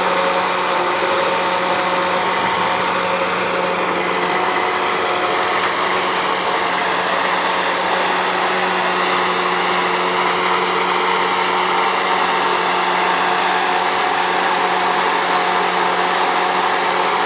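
Engine driving a cedar shingle-making machine, running steadily at an even speed.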